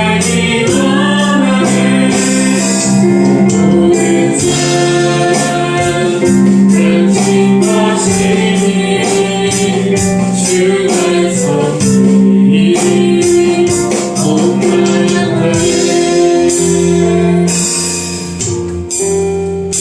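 Worship song played by a band, with voices singing and a steady percussion beat over sustained chords; the music fades down near the end.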